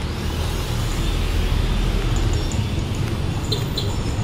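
A car passing on the street close by: a steady rumble of engine and tyres.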